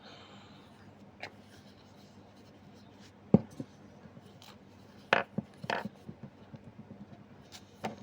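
Kitchen utensils and containers being handled and set down while making playdough: a sharp knock about three seconds in, two more a couple of seconds later, and light taps and rubbing between.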